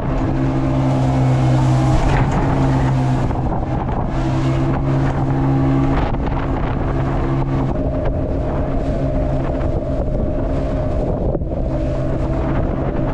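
Passenger boat's engine running steadily under way at speed, a constant drone, with wind buffeting the microphone and water rushing past the hull.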